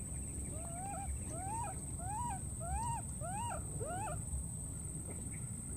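An animal calling six times in quick succession, each call rising and then falling in pitch, about two calls a second. A steady high-pitched whine and a low rumble run underneath.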